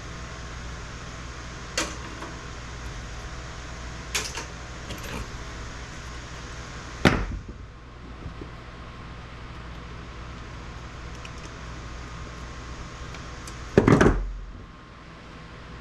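Circuit boards being stripped by hand: a few sharp clicks and two louder clanks, about 7 and 14 seconds in, as parts are pried off and dropped, over a steady fan hum.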